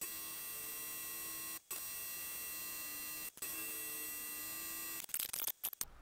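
Philips LatteGo 5400 espresso machine running its brew group cleaning cycle: a steady hum with a thin high whine, cutting out abruptly for an instant about every second and a half, with a few sharp clicks near the end.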